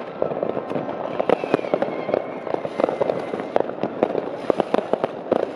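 Many consumer fireworks going off at once: firecrackers and rockets banging without pause in a dense, irregular crackle, with a faint whistle gliding through about a second in.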